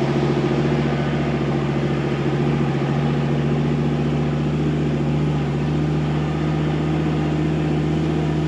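A 4x4's diesel engine running at steady, unchanging revs.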